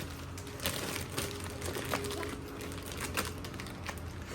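Plastic poultry shrink bag crinkling in irregular crackles as a dressed chicken is worked into it.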